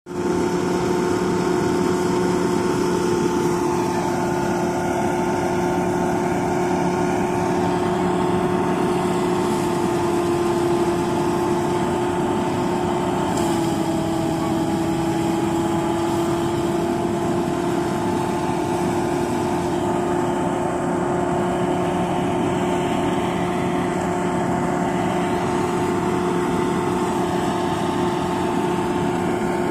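Rice thresher running at full speed while being fed with cut paddy, a steady droning hum from its drum and drive. The pitch dips slightly about halfway through.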